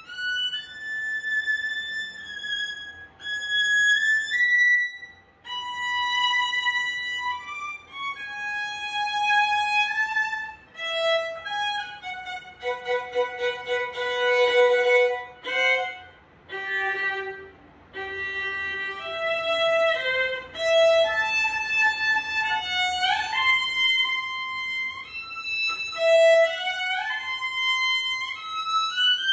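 Solo violin played with the bow: a practice passage of held notes, a stretch of fast repeated notes midway through, and quick rising runs in the second half.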